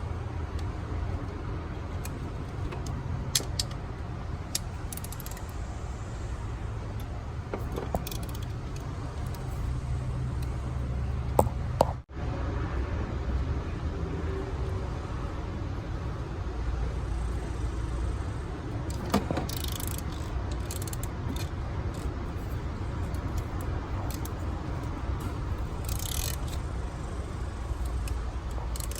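Quarter-inch drive flex-head ratchets working fasteners: scattered metal clicks and clinks of the ratchets and sockets, with short ratcheting bursts about two-thirds of the way through and near the end, over a steady low rumble. The sound cuts off abruptly for an instant about twelve seconds in.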